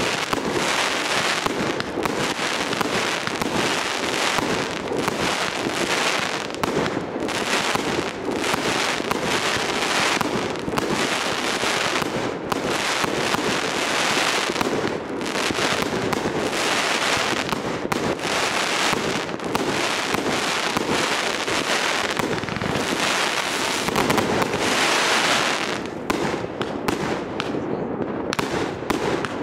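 Aerial fireworks bursting overhead in a dense, continuous run of crackling and bangs, thinning out in the last few seconds.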